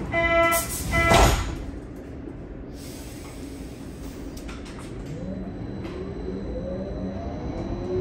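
Berlin U-Bahn HK-series train at departure. Its door-closing warning beeps end about a second in, and the sliding doors then thud shut. A few seconds later the traction drive starts to whine, rising steadily in pitch as the train pulls away.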